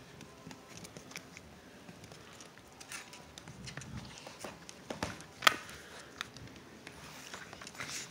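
Dogs' claws clicking and pattering on a tile floor as puppies scramble around an adult dog, with a sharp click about five and a half seconds in.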